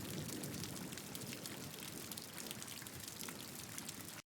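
Steady rain falling, with many small drops pattering, which cuts off suddenly near the end.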